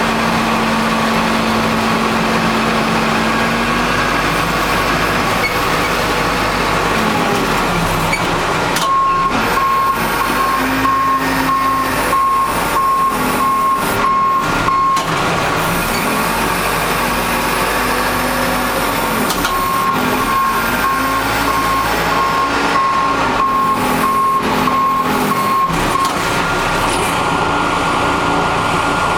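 Backhoe's diesel engine working under load, revving up and down while pushing snow with a pusher box. Its back-up alarm beeps steadily in two spells of several seconds, starting about nine seconds in and again just before twenty seconds.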